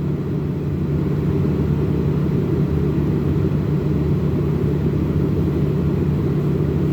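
Car engine idling with the air conditioning running, heard from inside the cabin as a steady low hum.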